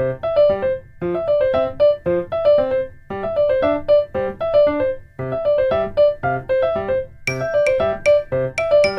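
Background music: a short, bright piano-like keyboard phrase repeating about once a second. Around seven seconds in, a crisp clicking beat joins it.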